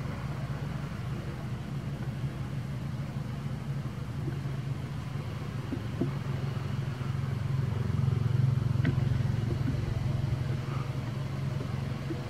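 Low, steady rumble of a motor vehicle's engine running nearby, growing louder about eight seconds in and then easing off, with a few faint clicks.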